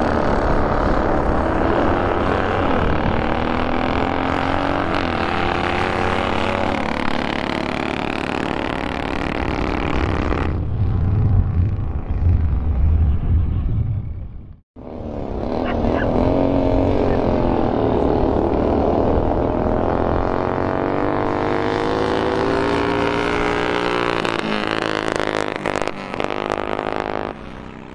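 Pre-war vintage motorcycle engines running and revving, the pitch rising and falling as they accelerate. The sound breaks off abruptly about halfway through, then engine noise starts again.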